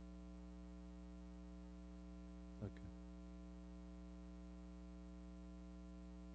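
Steady electrical mains hum with many harmonics, low in level, broken once by a brief spoken word about two and a half seconds in.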